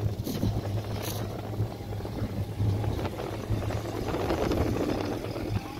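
Classic car engine running at low speed as the car drives slowly past at close range, growing louder about two-thirds of the way through as it comes alongside, with wind on the microphone.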